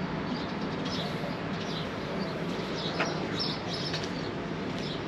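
Outdoor background noise with faint, short bird chirps repeating every so often over a steady hiss.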